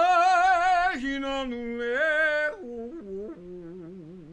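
A man singing unaccompanied, holding long notes with a wide vibrato. After about two and a half seconds the line steps down in pitch and fades to a soft, wavering low tone.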